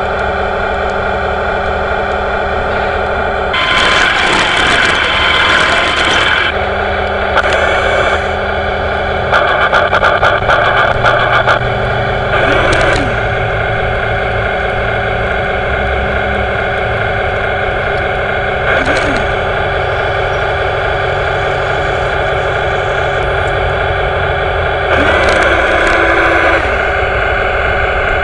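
Radio-controlled model tank running, a steady engine-like drone with several steady tones, broken by louder, noisier spells with dense clicking: about four seconds in for a few seconds, around ten seconds in, and again near the end.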